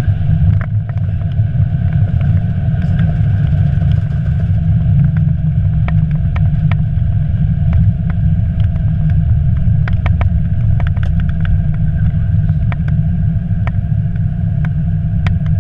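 Airbus A320 cockpit during the landing roll: a loud, steady low rumble from the wheels and airframe rolling on the runway, with many short, light rattles and clicks.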